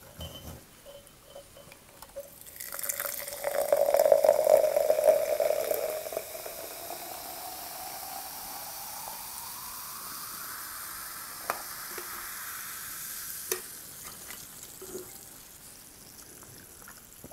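Tarkhun soda poured from a can into a glass jar. It splashes loudest at first, then the pitch rises steadily as the glass fills, over a fizzing hiss of carbonation.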